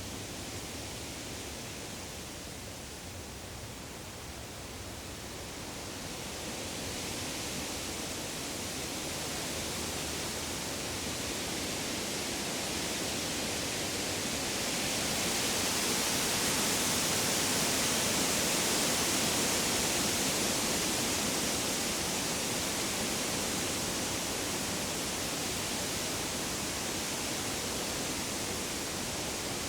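Woodland ambience: a steady rushing noise with no distinct calls or knocks. It swells gradually to its loudest about halfway through, then eases a little.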